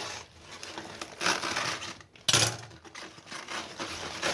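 Cabbage leaves crackling and snapping as they are peeled off the head one by one, with a sharp, loud snap a little past halfway.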